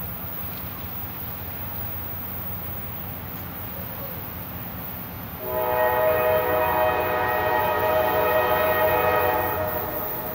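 CSX freight locomotive's air horn sounding one long, steady multi-note chord for the grade crossing, starting about halfway through and fading near the end, over a low steady rumble.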